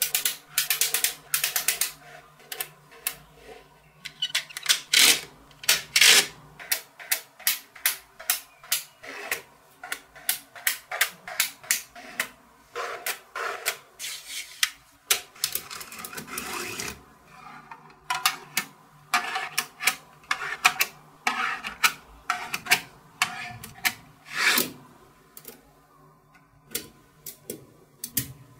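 Small magnetic balls clicking and clacking as blocks and rows of them are snapped together and pressed onto the structure, in quick irregular clusters. Near the middle, a longer rustling scrape as a sheet of paper is slid under a slab of the balls.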